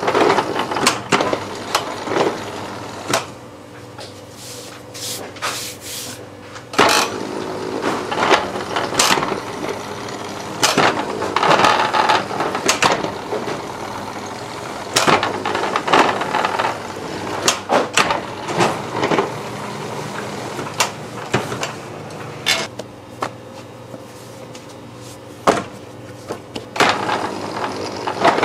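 Bakery dough sheeter running with a steady motor hum as laminated dough passes through its rollers, under frequent sharp clacks and knocks.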